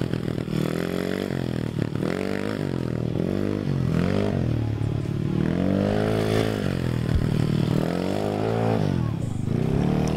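A vehicle engine revving up and down over and over, its pitch rising and falling several times as the throttle is worked.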